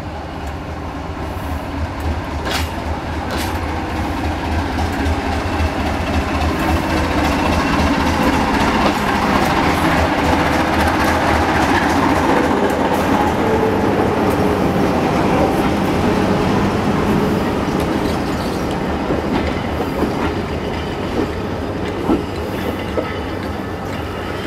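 Diesel multiple unit running past on the platform line, its engines and wheels growing louder to a peak about halfway through, then easing off as it moves away.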